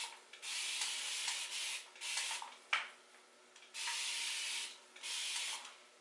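Spray bottle misting water onto a section of crochet-braid hair in four hissing bursts of about a second each, with a short click near the middle.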